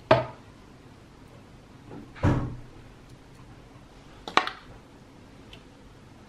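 A spoon knocking and scraping against ceramic ramekins and a mixing bowl while a thick batter is spooned out: three short knocks about two seconds apart.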